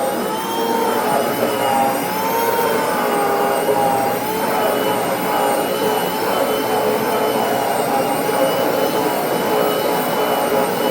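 Hoover FH52110 SmartWash carpet cleaner running with a loud grinding whine, its pitch wavering slowly up and down. It is the sound of a failing machine, which the owner believes is the motor burning out.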